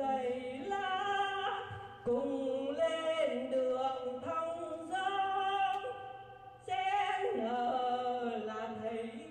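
A woman singing solo and unaccompanied into a handheld microphone, in a slow melody of long held notes with short breaks between phrases.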